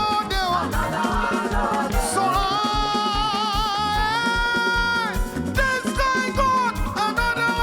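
Gospel praise music with a steady, driving beat and a singing voice holding a long note with vibrato through the middle.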